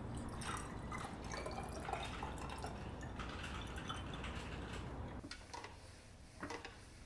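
Water poured from a filter pitcher into a small glass vase, trickling and dripping as it fills, with computer keyboard typing clicking in the background. The pouring stops about five seconds in, leaving a few faint clicks.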